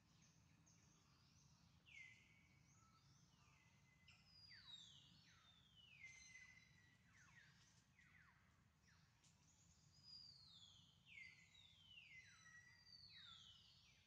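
Faint chorus of wild birds: many short calls gliding down in pitch, several overlapping at a time, over a low steady background rumble.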